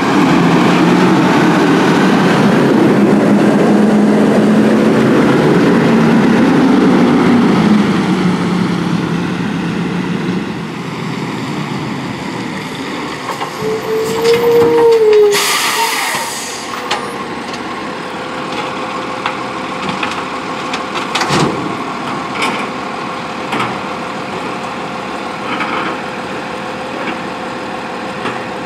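Diesel engine of a CCC LET2 front-loader garbage truck running hard at raised revs, easing off after about eight seconds. About halfway through there is a short brake squeal and a quick hiss of released air. The engine then runs quieter, with a few metallic clunks.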